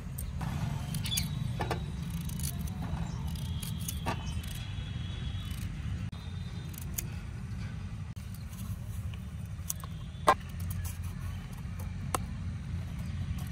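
A knife cutting fresh produce held in the hand over steel dishes: scattered light clicks and clinks, with one sharper clink about ten seconds in, over a steady low rumble.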